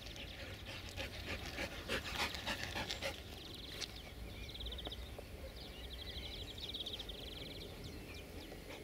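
A dog panting in quick short breaths for the first few seconds, then a rapid high-pitched trill repeating in several short bursts.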